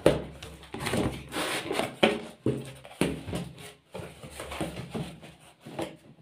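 A cardboard box being opened by hand: scissors cut along the packing tape, then the cardboard flaps are pulled open, with irregular scraping, rustling and sharp knocks of cardboard and plastic packing. The sharpest knock comes right at the start.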